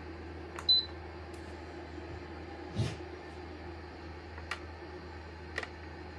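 Portable PTC ceramic heater's fan running with a steady hum. A few light clicks and a knock break in, the first with a short high beep under a second in.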